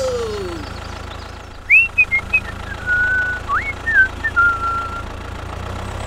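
Someone whistling a short phrase of a few notes that swoop up and then hold, from about two seconds in, over a steady low engine rumble.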